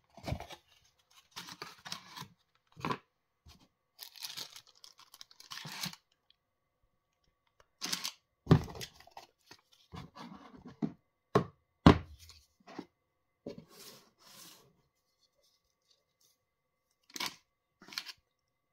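Cardboard box and plastic packaging handled during unboxing: irregular rustling and scraping in short bursts, with a few sharp knocks, the loudest about eight and twelve seconds in.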